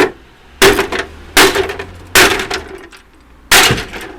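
Five loud, sharp metallic knocks, each with a brief ring, as metal parts of an air conditioning unit are hit while being stripped for scrap. The knocks come under a second apart, with a longer gap before the last.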